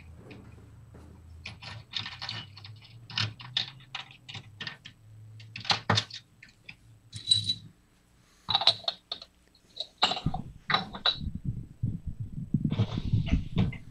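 Irregular clicks and rattles in short clusters, with a dull low rumble in the last few seconds.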